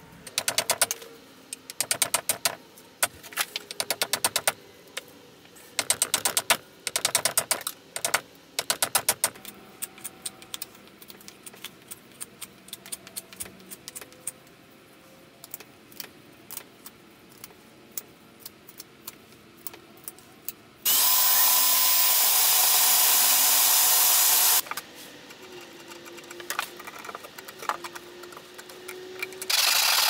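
Woodworking at a bench: quick runs of sharp clicking and tapping from hand tools on wood, then a quiet stretch with light ticks. About two-thirds of the way in a loud, steady rushing noise runs for about four seconds, and it starts again at the very end.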